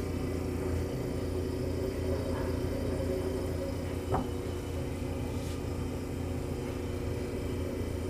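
GE Monitor Top DR-1 refrigerator's compressor running shortly after start-up, a steady low hum with a few held tones. One brief click about four seconds in.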